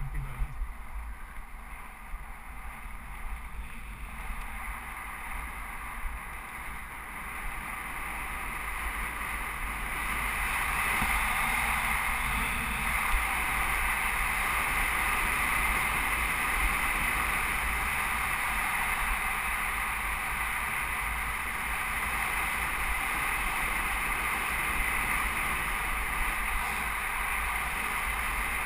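Wind rushing over a helmet-mounted camera with tyre noise on a gravel track, a steady rush that grows louder around eight to ten seconds in, then holds.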